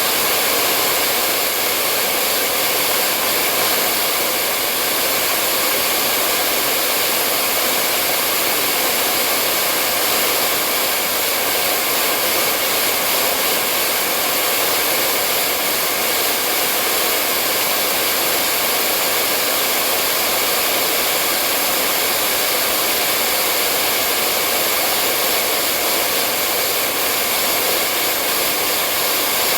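Hair dryer running continuously: a steady, loud rush of air with a faint motor whine, unchanging throughout.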